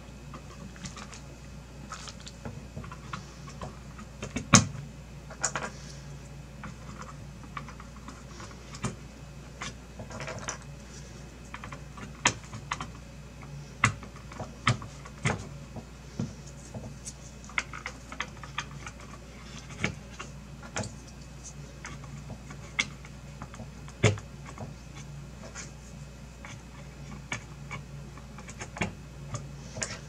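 Irregular sharp plastic clicks and knocks as PCIe x1 riser adapters are pushed and seated one by one into a motherboard's PCIe slots, with handling noise between them; the loudest click comes about four and a half seconds in.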